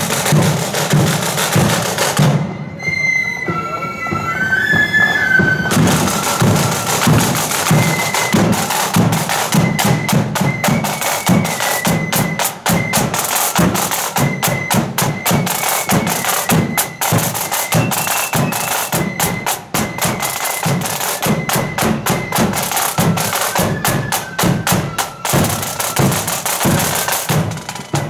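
Marching flute band playing: flutes carry a high, piping tune over a rapid beat of side drums and a bass drum. About two seconds in, the drums stop for a few seconds while the flutes play on alone, then they come back in.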